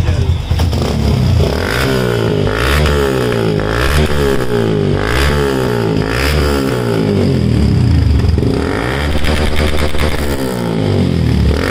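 Yamaha FZ's single-cylinder engine breathing through an aftermarket Akrapovic exhaust, idling and then revved in repeated throttle blips, about one a second, each rising and falling in pitch, settling back toward idle near the end.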